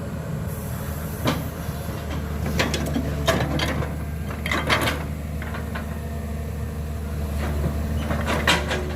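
Excavator's diesel engine running steadily, with a series of sharp knocks and cracks over it as the machine works.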